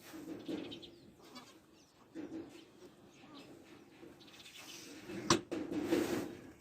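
Boer goats bleating several times in short, low-pitched calls around newborn kids, with a sharp click about five seconds in.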